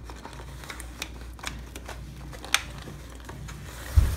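Clear plastic lid being pressed and snapped onto an aluminium foil pan: scattered crinkles and clicks, with one sharper click about two and a half seconds in and a dull thump near the end.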